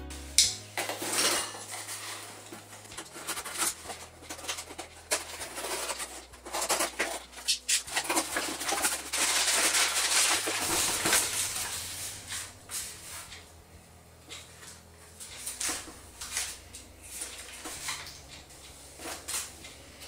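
Crumpled brown packing paper crackling and rustling in a cardboard box as a boxed dishwasher heat pump is unpacked by hand, with scattered knocks of the box and part. It is busiest around the middle and thins out toward the end.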